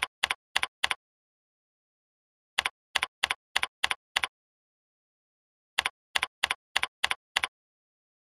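Computer keyboard keystrokes: three quick runs of crisp key clicks, about three a second and four to six per run, each run a number being typed in and entered, with dead silence between the runs.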